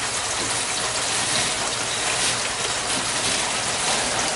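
Water pouring steadily from a PVC inlet pipe into an aquaponics grow bed of lava rock: a constant splashing rush.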